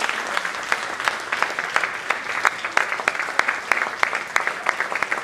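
Audience applauding, many hands clapping at once at an even level.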